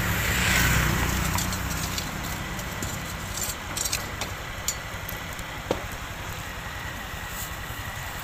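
A motor vehicle's engine running close by and fading out after about two seconds, over steady street noise. Scattered small clicks and taps follow.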